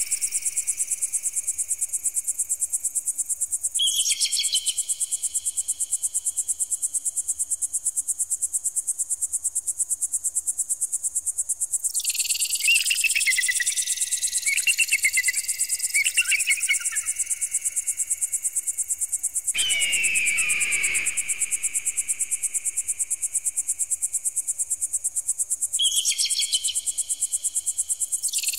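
Electronic bird-repeller sound: a rapid, high-pitched pulsing buzz with thin tones sweeping slowly upward and restarting every several seconds. Warbling tones come and go lower down, and the pattern switches abruptly several times.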